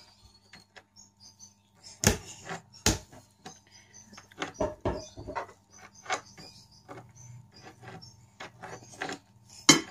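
Irregular clicks and knocks of a knife and cutlery on a plate while cutting up a boiled artichoke. The loudest knocks come about two and three seconds in and again near the end, over a faint steady low hum.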